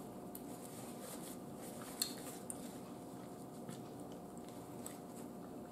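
Faint eating and table sounds: scattered small clicks and handling noises, with one sharper click about two seconds in, over a faint steady hum.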